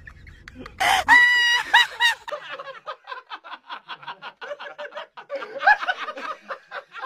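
A loud, shrill squeal about a second in, then a long run of rapid, high-pitched cackling laughter, about seven pulses a second.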